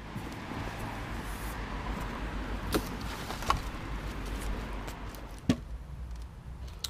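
Cardboard boxes and electronics being shifted and rummaged through: a rustling scrape of cardboard with a low rumble, and three sharp knocks, two close together about three seconds in and the loudest a little over five seconds in.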